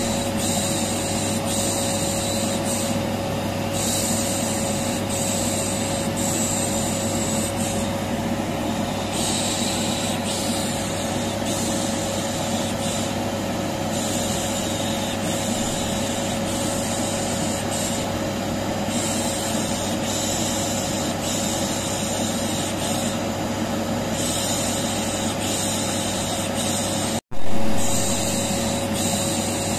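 Vacuum cleaner running steadily, with a long 'shh' shushing hiss laid over it that starts and stops every few seconds, as in a baby-soothing noise track. About 27 seconds in the sound cuts out for an instant and comes back louder where the recording loops.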